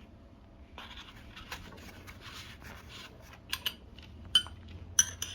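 Handling of the drill kit's contents: scratchy rustling, then from about halfway several sharp metallic clinks with a brief ring, as small metal pieces such as drill bits knock together.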